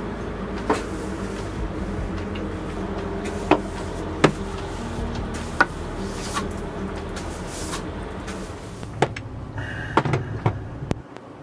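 Sharp knocks and clatter of things being put away in a camper van's cabinets, with cupboard doors shut about half a dozen times over a steady low hum.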